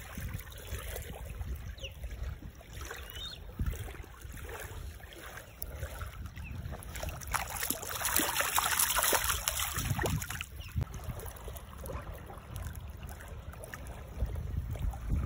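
Wind rumbling on the microphone. About seven seconds in come three seconds of splashing as a released fish thrashes away through shallow water.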